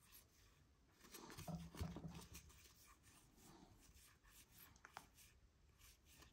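Faint sliding and rubbing of cardstock baseball cards being flipped through by hand, each card pushed from the front of the stack to the back. The card handling clusters about one to two and a half seconds in, with a single small tick near five seconds, and is otherwise near silent.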